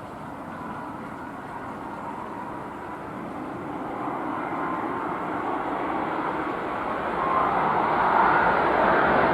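Jet engines of an Airbus A330-300 approaching to land, a steady whooshing rumble that grows steadily louder and is loudest from about seven seconds in.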